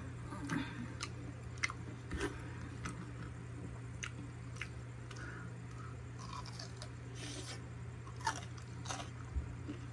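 Close-up mukbang chewing of siomai dumplings, with wet mouth clicks and smacks at irregular intervals. Near the end come a few sharper crunchy bites into a piece of pickled radish.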